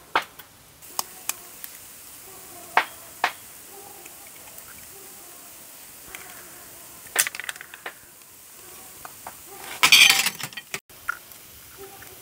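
Glass bowls and a spoon clinking and tapping on a table during cooking: a few sharp clicks in the first few seconds, a cluster about seven seconds in, and a louder rustling scrape about ten seconds in.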